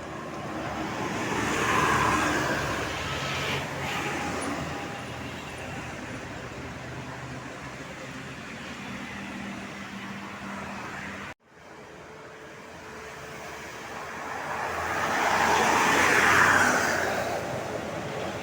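Road traffic with vehicles driving past: one pass swells up and fades in the first few seconds, and another builds and fades near the end, with a steady engine hum between them. The sound cuts out abruptly for a moment about two-thirds of the way through.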